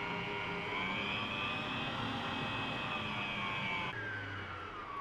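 Eurolux stand mixer's electric motor running steadily with a whine, its whisk beating cream and condensed milk in a steel bowl. About four seconds in it is switched off and the whine falls away as the motor spins down.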